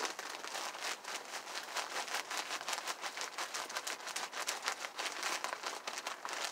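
Potting mix pouring from a plastic bag onto loose soil: a steady crackling patter of falling soil, with the plastic bag crinkling as it is shaken.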